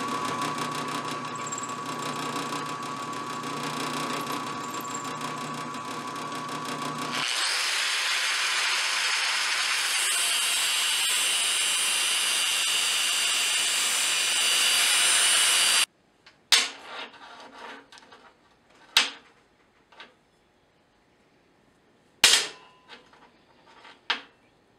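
A drill press running steadily as it drills into a mild steel block held in a vise. About seven seconds in it gives way to an angle grinder's cut-off wheel cutting through the steel block, louder, which stops abruptly about sixteen seconds in. Then a few sharp clinks as the cut steel pieces are handled and set down on the workbench.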